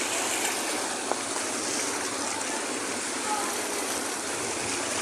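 Sea surf washing steadily onto the shore, a continuous rushing hiss of water.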